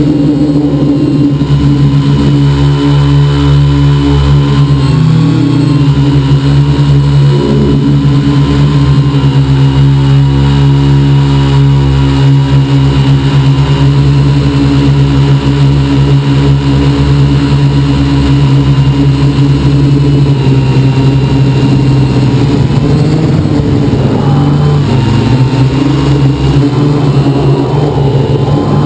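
A quadcopter's electric motors and propellers hum steadily and loudly, heard up close from a camera on the frame. The whine is made of several layered tones that bend slightly in pitch as the throttle changes, about 5 seconds in and again near the end, over a low rumble.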